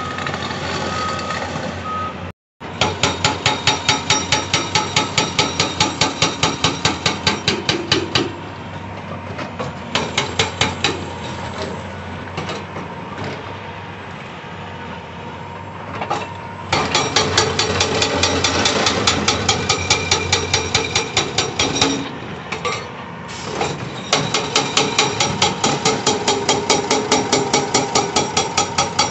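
Hydraulic breaker on a CAT 349E excavator hammering rock in rapid runs of several blows a second, stopping and starting, with the excavator's engine running through the pauses. At first, before a brief cut, a steady engine sound with short beeps like a backup alarm.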